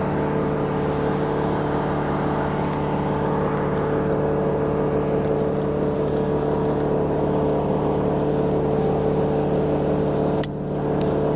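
Crane's engine running steadily at an even speed, with a few faint clicks over it and a brief dip in the sound near the end.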